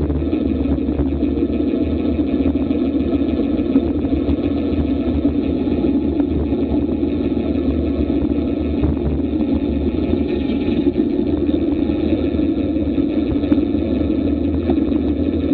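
Steady wind rush and buffeting on an action camera's microphone from a road bike descending at about 30 mph, a continuous low rumble.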